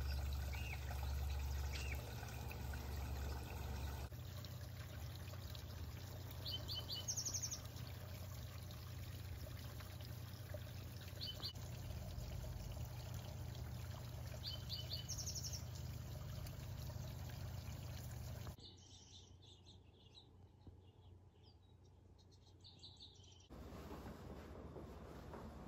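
Small birds giving short, high chirps every few seconds over a steady background of trickling water and low rumble. The background changes abruptly a few times.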